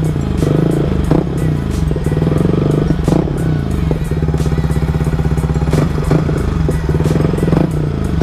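Yamaha MT-15's single-cylinder engine revved repeatedly through a replica Akrapovic full exhaust with its silencer insert removed. The pitch rises and falls with each blip, several times over, with sharp pops between.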